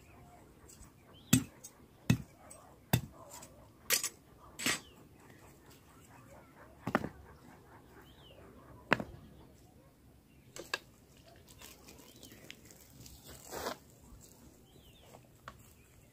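Sharp knocks of a hatchet and stones striking stone as a small stone fire hearth is built, coming about one a second at first, then a few more spaced several seconds apart. Small birds chirp faintly in the background.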